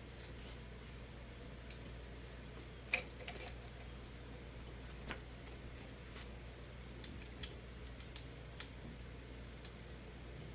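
Scattered light clicks and clinks of glass light shades being handled and fitted to a ceiling fan's light kit, the sharpest about three seconds in, over a steady low hum.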